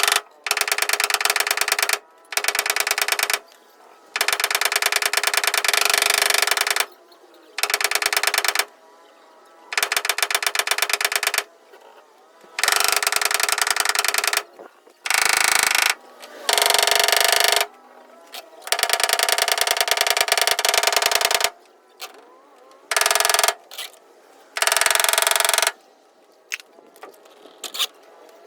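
A power tool running in about a dozen bursts of one to three seconds, each a fast, even clatter of rapid taps, stopping and starting again between bursts.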